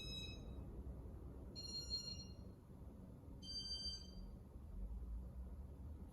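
Three electronic beeps about two seconds apart, each a little higher in pitch than the last, from the Casablanca ceiling fan's Inteli-Touch control as its demo mode steps through its sequence. A low steady hum runs underneath.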